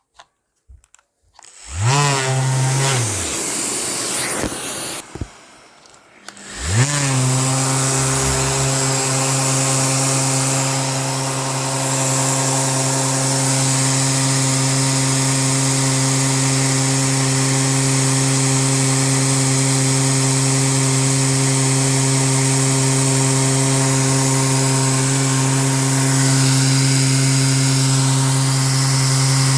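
Electric sander spun up for about a second, switched off, then started again and running steadily while sanding epoxy resin, which quickly clogs the sandpaper.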